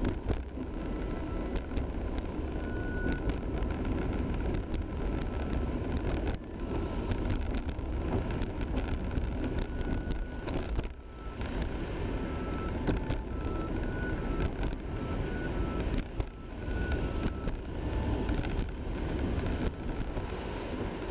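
A car driving on a snow-covered road, heard from inside: a steady rumble of engine and tyres rolling through snow and slush.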